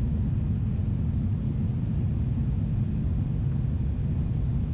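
Steady low rumble of a Boeing 777-300ER's GE90 engines and airflow, heard inside the airliner's cabin.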